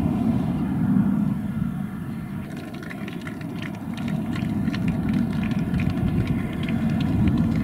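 Scattered applause from a small group of spectators, beginning about two and a half seconds in, over a steady low rumble.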